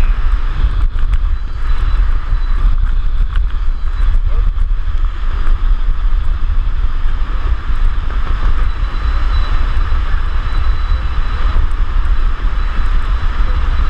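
Wind rushing over a skydiver's GoPro microphone in freefall: a loud, steady buffeting with a heavy low rumble.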